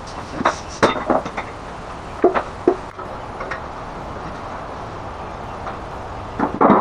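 A few short metallic clinks and knocks, as of parts or tools being handled, over a steady hum, with a louder knock or clatter near the end.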